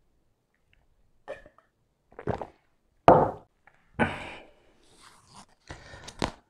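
Close-miked mouth and handling sounds around a drink of cola: a few short swallowing sounds, a loud sudden mouth sound about three seconds in, then rustling and scraping as a pan pizza slice is lifted off its corrugated cardboard.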